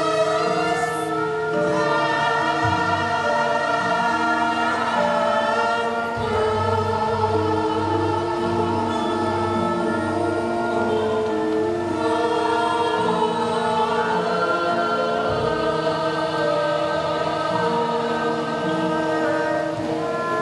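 Javanese gamelan ensemble playing a bedhayan-style gending: bronze metallophones and gongs holding steady ringing notes under a chorus of voices singing together.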